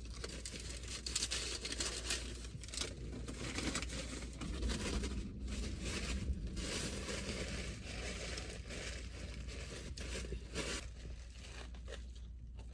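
Food packaging crinkling and rustling as it is handled and torn open, in irregular bursts.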